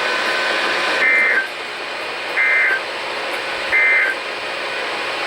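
Emergency Alert System end-of-message code heard over NOAA Weather Radio: three short, shrill digital data bursts about 1.3 seconds apart over steady radio hiss. The burst sent three times marks the end of the alert broadcast.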